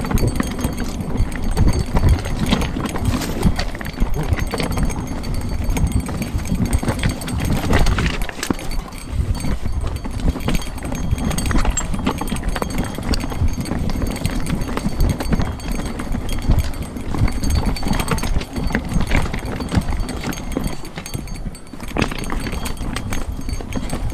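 Mountain bike rattling and clattering over loose rocks and stones on a fast descent, a continuous dense run of knocks from tyres, frame and drivetrain, over a constant low rumble.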